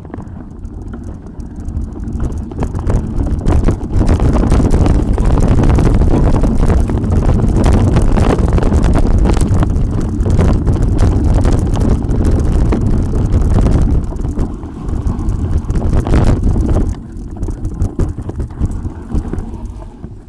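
Wind buffeting the microphone, with the rattles and knocks of a mountain bike jolting down a rough off-road descent. It gets louder about four seconds in and eases off near the end.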